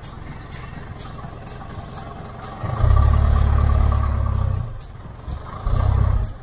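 Vehicle driving, its engine and road noise rumbling, swelling into a loud deep rumble for about two seconds partway through and again briefly near the end. A faint steady tick about twice a second runs underneath.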